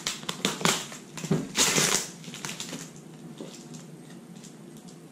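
Packaging being torn and picked off the end of a cardboard shipping tube by hand: a run of crinkles and clicks, with a longer, louder rip about a second and a half in, then quieter handling.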